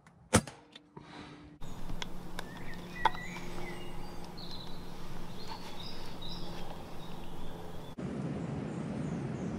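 A single sharp air rifle shot just after the start, followed after a cut by woodland birds chirping and singing over a steady outdoor background.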